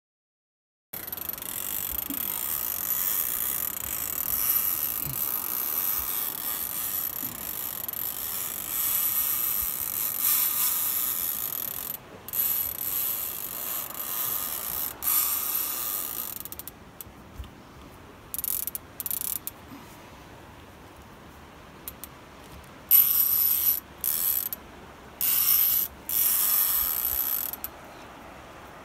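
Fishing reel's drag buzzing as a hooked sturgeon runs and strips line off the reel. It runs steadily for about fifteen seconds, then comes in several short bursts as the fish pulls in spurts.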